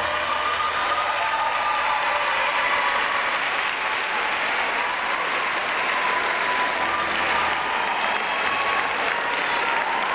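A large audience applauding steadily, with a few voices calling out over the clapping.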